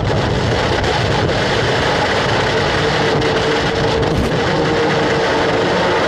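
Open-wheel racing car's engine at speed, heard from the onboard camera over heavy wind and road noise, its note holding steady through the second half.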